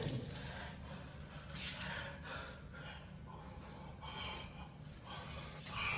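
A man breathing close to the microphone: several soft breaths, about a second apart.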